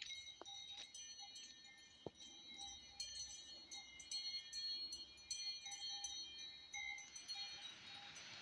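Cowbells on grazing cows jingling and clanking together in a steady shimmer of metallic ringing. Near the end a steady hiss comes in.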